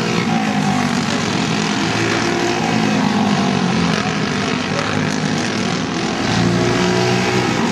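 Several racing go-karts' Briggs & Stratton Animal four-stroke single-cylinder engines running at speed together, their overlapping tones rising and falling as the karts pass and lift for the corners.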